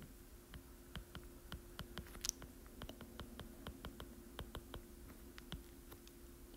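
Faint, light clicks of a stylus tip tapping on a tablet's glass screen while words are handwritten, a few taps a second, with one short scratch about two seconds in. A faint steady hum runs underneath.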